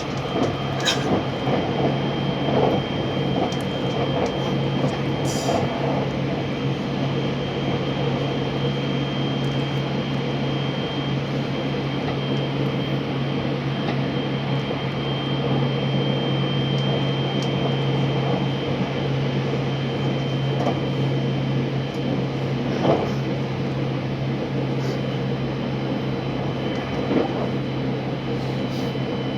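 Cabin noise of a JR West 683 series electric train running along the line: a steady low hum under an even rushing noise, with a thin steady high tone and a few light knocks, the sharpest about two-thirds of the way through.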